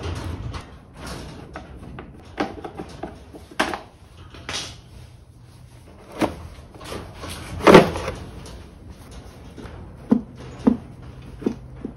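Plastic air-cleaner box and carburettors of a Kawasaki ZRX-II being worked loose by hand: scattered knocks, clunks and rattles of plastic and metal parts, the loudest about eight seconds in and a few sharp knocks near the end.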